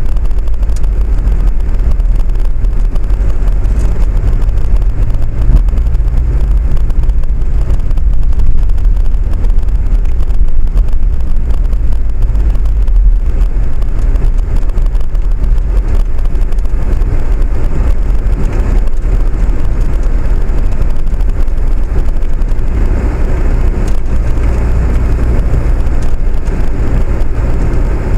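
Steady, loud, deep rumble of a vehicle under way.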